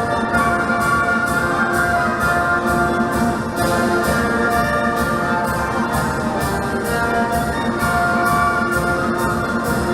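Military march played by a brass-heavy band or orchestra, with trumpets and trombones over a steady march beat.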